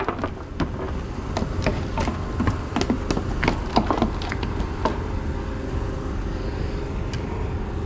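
Irregular knocks and taps on a wooden plank deck, thinning out after about five seconds, over a steady low rumble.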